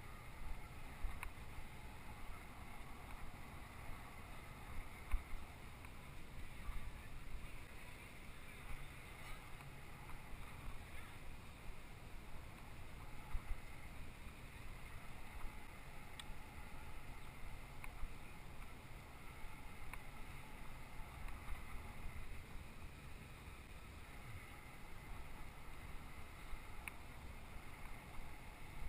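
Wind buffeting the microphone of a bicycle-mounted camera over a low rumble from the bicycle rolling along paved pathway, with a few faint clicks.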